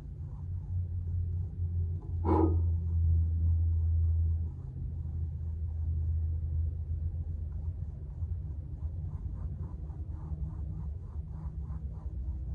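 A steady low rumble with one sharp knock about two seconds in, and faint, repeated scratching of a paintbrush's strokes across canvas, clearer in the second half.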